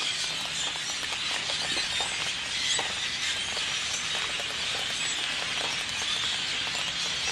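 A large flock of birds screeching all at once: a steady, dense din of many short, high overlapping calls.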